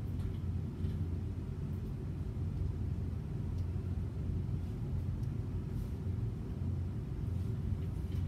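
Steady low rumble of background room noise, with no distinct event standing out.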